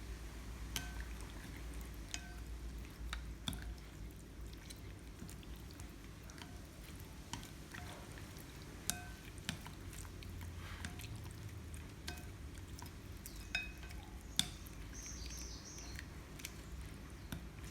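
Scattered light clicks and clinks of kitchen utensils against dishes, some with a brief faint ring, over a steady low hum.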